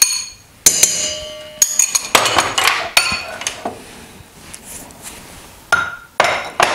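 A run of sharp clinks and knocks as a spoon scrapes yogurt into a stainless steel mixing bowl and taps against the bowl and a glass. The first knock, about two thirds of a second in, leaves the metal bowl ringing for about a second.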